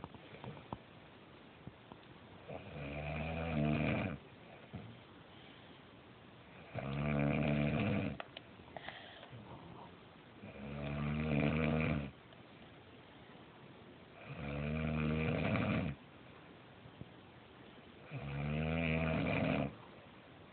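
A woman snoring in her sleep: five drawn-out snores, one about every four seconds.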